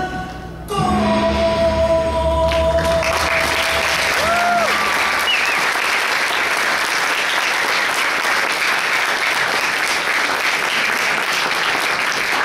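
An audience applauding as the performers bow, the clapping swelling about two to three seconds in and going on steadily. Under the start of it, the final held notes of the routine's backing music end with a short sliding note about four seconds in.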